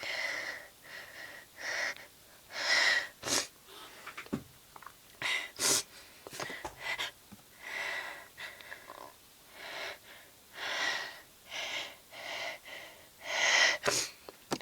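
A woman sniffling and breathing in short ragged gasps through a congested nose, over and over, with a few sharper, louder sniffs, her nose stuffy and itching from allergies.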